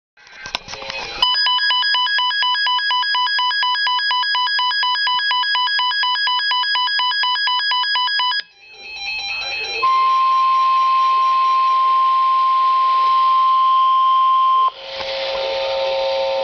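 Emergency Alert System tones announcing a severe thunderstorm warning. First comes about seven seconds of a fast, repeating multi-pitch electronic warble. After a brief drop, a steady single-pitch alert tone sounds for about five seconds, and near the end it gives way to a different steady tone made of several pitches at once.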